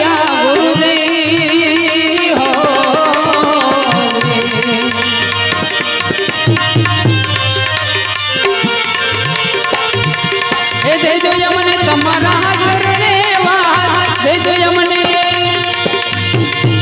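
Gujarati devotional bhajan music: tabla keeps a steady beat under a wavering melody line, with no words sung.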